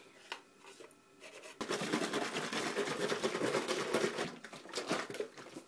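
Pancake batter being mixed vigorously inside a plastic shake-and-make bottle, a rapid scraping and rattling that starts about a second and a half in. It works loose the unmixed powder stuck at the bottom.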